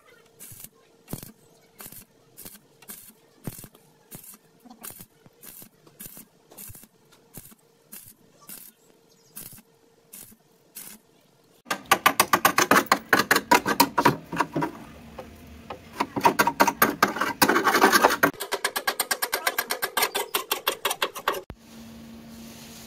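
Stick (arc) welding on the rusty sheet steel of a 1980 Vespa PX150 body: the arc strikes in short bursts about twice a second. About twelve seconds in, a chipping hammer knocks slag off the fresh weld with fast, loud metal-on-metal strikes for about ten seconds.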